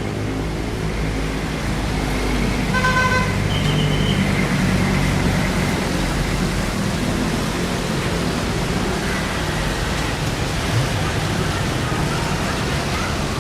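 City street traffic: a steady rumble of passing vehicle engines and tyres, louder for a few seconds in the first half. A car horn sounds once, briefly, about three seconds in, followed by a short high-pitched beep.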